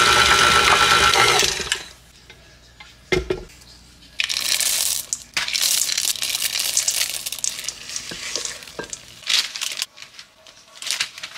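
KitchenAid stand mixer running steadily, then switched off a little under two seconds in. After it stops come a low thump about three seconds in and several short bursts of scraping and clattering as the bowl and dough are handled.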